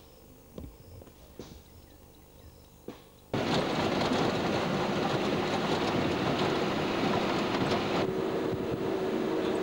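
A few faint clicks over quiet ambience, then about three seconds in a sudden switch to the loud, steady noise of an open vehicle driving on a bush track, engine rumble and hiss together, with a steady low hum coming in near the end.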